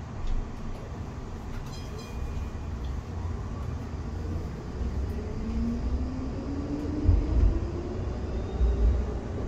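Electric tram (Škoda ForCity Smart Artic) accelerating, heard from inside the passenger cabin: the low wheel-and-rail rumble grows louder, and the traction motor whine rises steadily in pitch over the second half. A brief high beep sounds about two seconds in.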